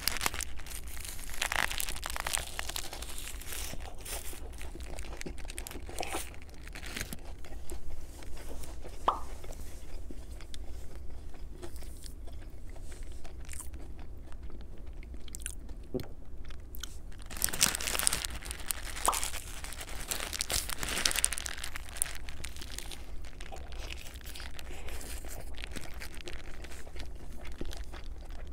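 Crunching bites and chewing of a crispy fried chicken sandwich from Burger King, loudest near the start and again about two-thirds of the way through, with quieter chewing in between.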